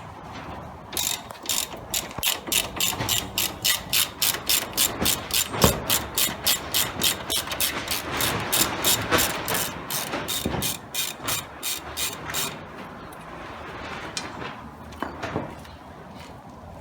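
Hand ratchet wrench clicking in a steady rhythm, about three or four clicks a second, as the tie rod end nut is unscrewed, with a couple of louder knocks among the clicks; the clicking stops about twelve seconds in.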